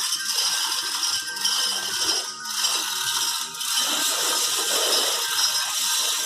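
Continuous metallic rattling and clicking of tools and parts during engine-bay dismantling work.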